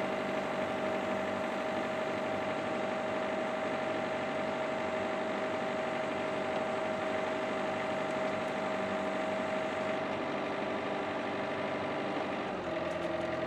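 Yanmar YB451 mini excavator's diesel engine running steadily as it holds and lowers a chained engine, its note shifting slightly near the end.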